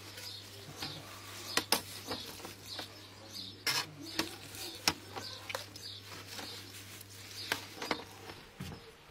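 Stainless mash paddle stirring wet malt in a stainless malt pipe, with repeated clicks and knocks of the paddle against the metal. Under it, the steady hum of the brewing system's recirculation pump, which stops shortly before the end.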